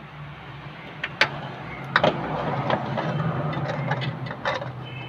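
Plastic brake fluid reservoir being pressed and worked into place on a new brake master cylinder. There are sharp plastic clicks and knocks about a second and two seconds in, then a stretch of rubbing and scraping, over a steady low engine hum.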